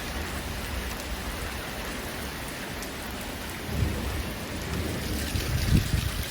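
Torrential rain pouring steadily during a severe thunderstorm, with low rumbles about four seconds in and again, louder, near the end.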